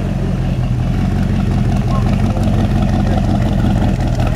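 V8 engine of a C2 Chevrolet Corvette Sting Ray coupe running at low revs as the car drives slowly in, a steady low rumble.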